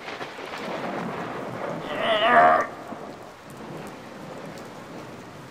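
Rain falling with thunder, a storm sound effect, heaviest in the first two and a half seconds and then easing to a steady patter. A short wavering wail cuts through it about two seconds in.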